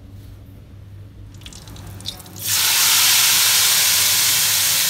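Hot spiced oil tempering (tadka) poured into a pot of kadhi, hitting the liquid with a sudden loud, steady sizzle from about halfway through.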